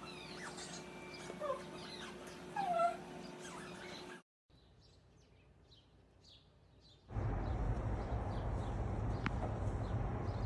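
Small birds chirping, with a couple of louder short whining calls near the start. About four seconds in the background drops quieter, and about seven seconds in a steady low rumble joins the chirping.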